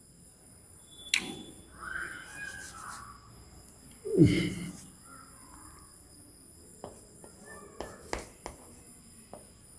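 Chalk tapping and scratching on a chalkboard as letters and bonds are written, with several sharp taps from about seven seconds in. A short, louder sound falling in pitch comes about four seconds in.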